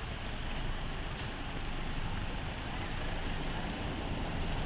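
Bus engine idling: a steady low rumble.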